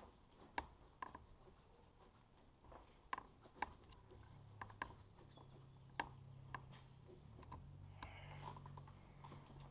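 Faint, irregular clicks and taps of rubber coolant hoses and plastic fittings being handled and hooked up in an engine bay. A low steady hum comes in about four seconds in.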